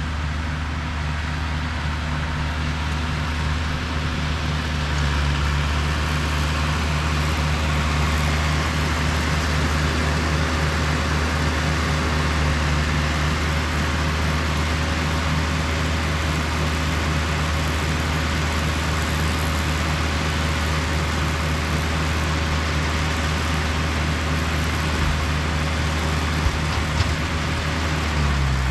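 Tractor engine running at a steady speed, pulling a working round baler through the hay.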